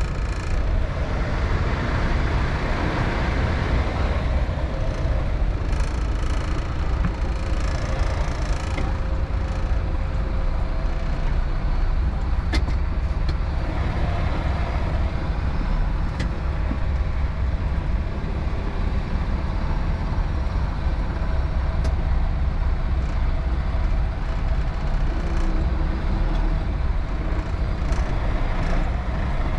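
Semi-truck diesel engine running at low revs during slow reversing, heard from inside the cab as a steady low rumble, with a few faint clicks.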